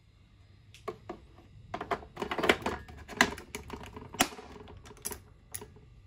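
Plastic clicks and knocks of a Nescafé Dolce Gusto Mini Me capsule holder being fitted into the machine and its lever being worked. A quick, uneven run of clicks in the middle is followed by a few single sharp clicks.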